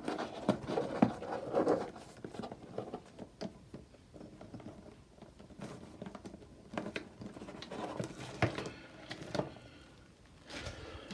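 Rustling and irregular small clicks of plastic packaging and parts being handled while a shower bidet kit is unpacked, with quieter stretches in the middle and near the end.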